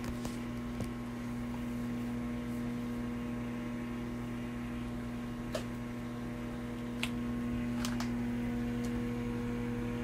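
Hamilton Beach microwave oven running, giving a steady electrical hum, with a few faint clicks in the second half.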